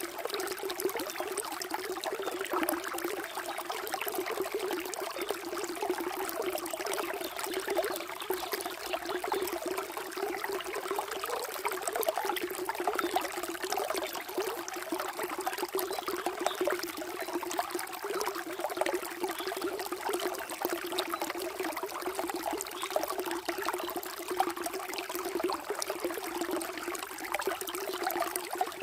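Running water flowing steadily, a continuous, even rush with no breaks or changes.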